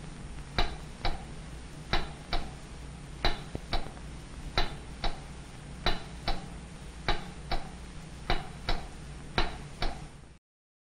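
Pairs of sharp ticks repeating about every 1.3 seconds over a low steady hum and hiss, cutting off abruptly near the end.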